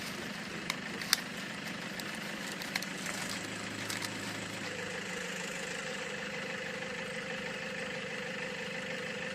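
An engine running steadily at idle, a continuous mechanical hum, with a few sharp clicks in the first three seconds. A steady higher tone joins the hum about five seconds in.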